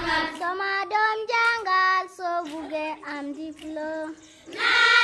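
Children singing a melody that steps from note to note, pausing briefly and coming back louder near the end.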